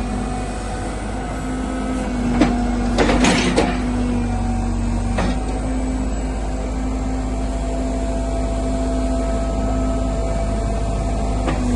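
JCB 3CX backhoe loader's Perkins diesel engine running steadily at idle, with a few short knocks about two and a half to three and a half seconds in and again near five seconds.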